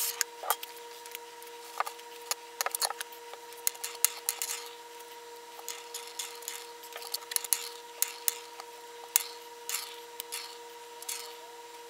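Steel 608 skateboard bearings rolling and clattering on a wooden workbench: irregular clicks and knocks, some in quick clusters, over a steady faint hum.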